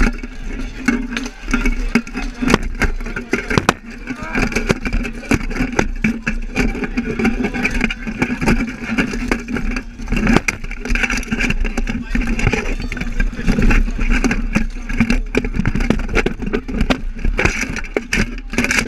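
Steel weapons and plate armour clanking and crashing in a full-contact armoured melee, many irregular sharp blows, over the steady noise of a shouting crowd.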